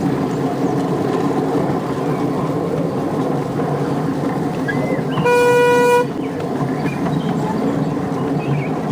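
A 7¼ inch gauge miniature train rumbling steadily along its track, sounding one short, steady toot about five seconds in.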